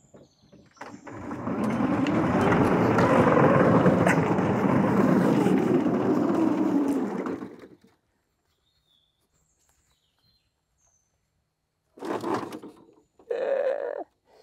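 3D-printed tracked tank rolling away downhill without power, its electric brake disengaged: the tracks and back-driven drivetrain rattle loudly for about seven seconds, with a pitch that rises as it gathers speed and then falls, before the sound cuts off.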